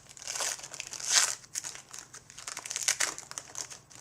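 Baseball card pack wrapper being torn open and crinkled by hand, in irregular crackles with the loudest about a second in.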